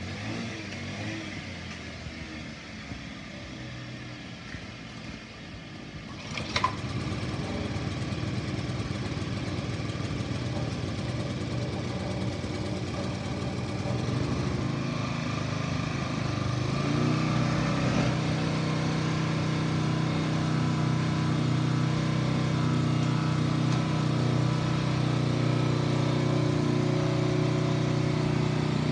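Kubota TRS30 rear-tine tiller's small engine running. A sharp click about six and a half seconds in is followed by louder running, and from about seventeen seconds on it settles into a steady, even drone.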